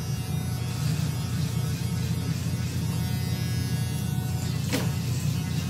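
Cordless electric hair clipper buzzing steadily as it is worked along a customer's jaw and neck.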